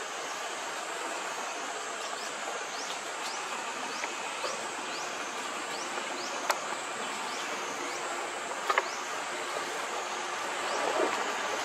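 Forest insect ambience: a steady high-pitched insect drone. Over it, a run of short rising chirps comes about two to three a second through the first half, and a few sharp clicks fall around the middle.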